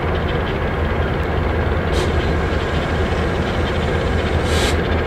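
Norfolk Southern diesel-electric locomotive's engine running steadily with a low rumble as the locomotive rolls slowly. Two short hisses come about two seconds in and again near the end.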